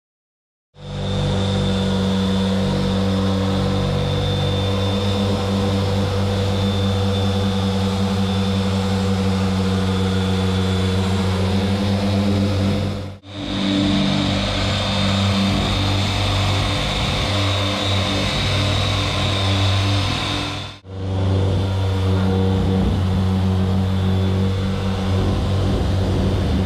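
Handheld electric sander running on a wooden door, its dust-extraction vacuum drawing through the attached hose: a loud, steady motor hum with a high whine over the rasp of sanding. The sound drops out sharply twice, for a moment each time.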